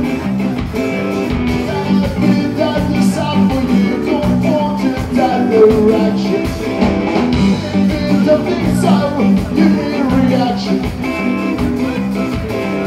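Live ska band playing loud and steady, with electric guitars, bass guitar and drums, heard from the audience floor of a concert hall.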